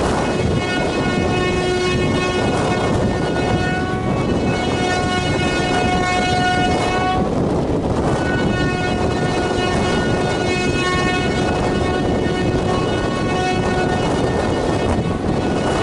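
WAP4 electric locomotive's horn sounding two long steady blasts, each about seven seconds, with a short break between them, over the continuous running noise of the train.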